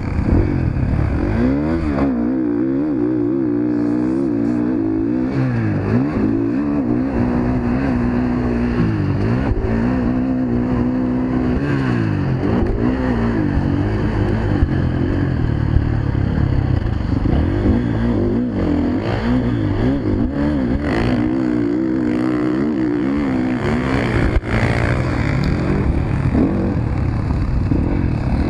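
Motocross bike engine heard up close from the camera rider's own bike, revving up and dropping back again and again through gear changes and corners.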